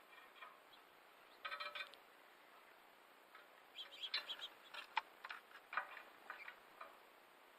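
Faint wild bird calls: a brief harsh chatter about a second and a half in, then a run of short, sharp chips scattered over the next few seconds.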